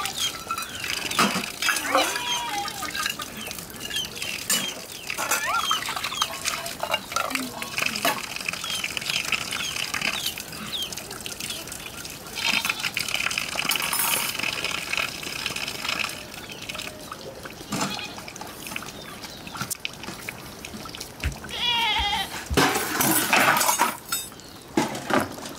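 Water splashing and trickling as steel bowls and leafy greens are rinsed in a concrete basin under an outdoor tap, with small knocks of the bowls. Short high calls come through now and then, and a wavering call sounds near the end.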